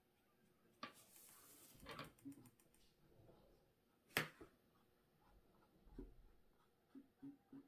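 Near silence with a few faint clicks and taps of a paintbrush being handled and dabbed on a canvas, the sharpest about four seconds in.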